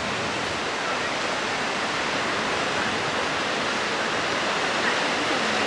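Steady wash of ocean surf breaking along a beach, heard as an even roar with no single wave standing out.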